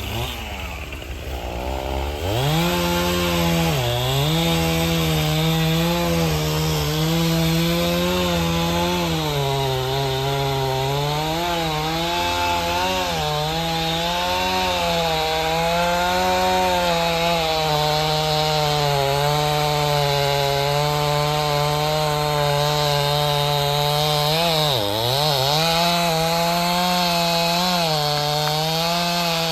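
Gas chainsaw revving up about two seconds in, then running at high throttle while cutting a tree limb, its pitch wavering with the load and briefly sagging twice.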